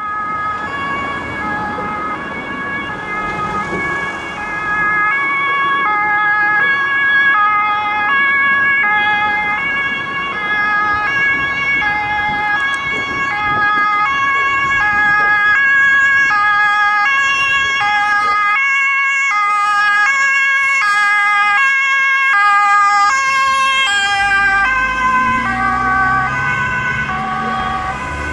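Police car's two-tone siren alternating steadily between a high and a low note, getting louder as the car approaches. Near the end the pitch drops slightly as the car passes and pulls away, and road noise joins in.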